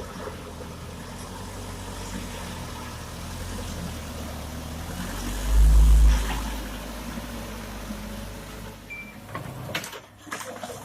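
Diesel engine of a Komatsu PC200-6 hydraulic excavator running steadily as it works, with a loud low swell about halfway through. The sound drops away near the end.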